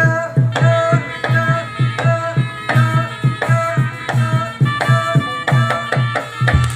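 Live jaranan accompaniment music: a steady, loud drum rhythm with sustained pitched melodic tones over it.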